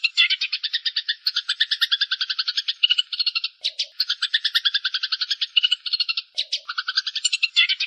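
Eurasian tree sparrows chattering as they fight: a fast, unbroken run of harsh chirps, about ten a second, with two brief pauses around the middle.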